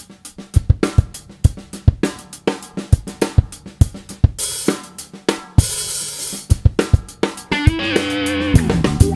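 A drum break on a Pearl drum kit: a quick run of kick, snare and hi-hat strokes, with cymbal crashes ringing out around the middle. Electric guitar notes come in near the end as the band rejoins.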